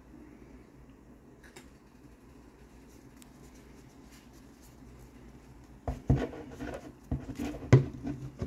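Quiet room tone, then about six seconds in a flurry of rubbing and knocks as the hard plastic model horse is handled and turned close to the microphone. The loudest knock comes near the end.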